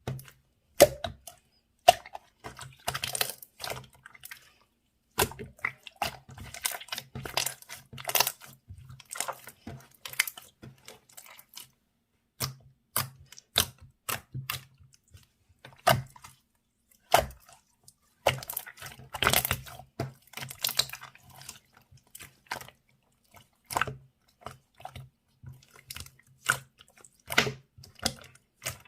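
Milk slime being squished and pressed by hand, giving irregular sharp clicks and wet crackles as trapped air pops, with short pauses between bursts.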